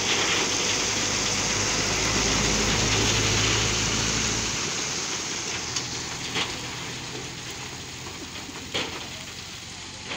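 Load of rock and gravel sliding and tumbling out of a tipped dump truck body in a steady rushing clatter, over the truck's engine running. The engine's low hum drops away about halfway through, and the rush of stones thins out, with a few louder stone knocks near the end.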